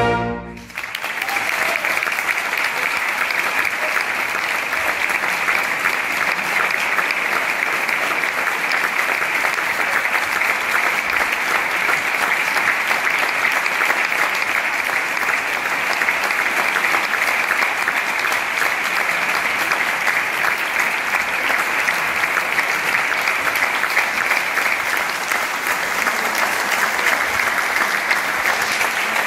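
A concert band's final chord cuts off right at the start, then a full audience applauds steadily and densely.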